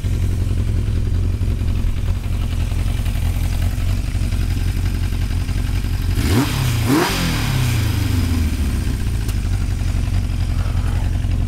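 1981 Yamaha XJ750's inline-four engine idling steadily, with two quick blips of the throttle a little past halfway.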